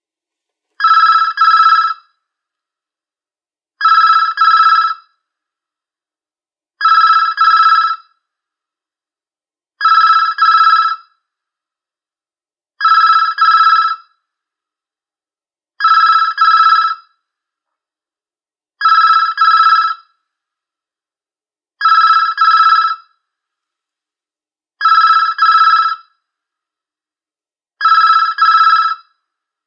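Telephone ringing in a double-ring pattern: two short rings together, repeating about every three seconds.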